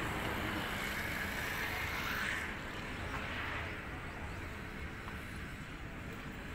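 Steady outdoor background noise of vehicles: a low rumble with hiss. It swells a little between one and two and a half seconds in, then eases slightly.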